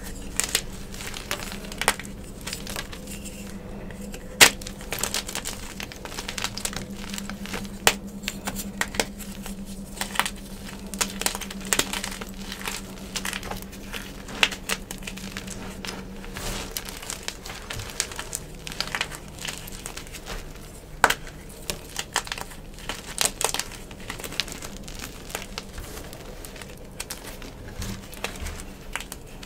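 Gym chalk blocks crushed and crumbled by hand: irregular, medium-crunchy crackles and snaps as the chalk breaks, with softer crumbling of pieces and powder between them.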